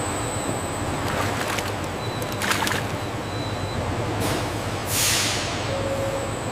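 Steady low engine rumble of a truck, with several short, sharp hissing rushes like air-brake releases.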